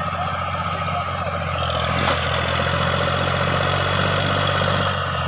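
Diesel farm tractor engine running steadily, then rising in revs about two seconds in as it strains to pull an overloaded trailer of logs. There is a single sharp click at about the same moment.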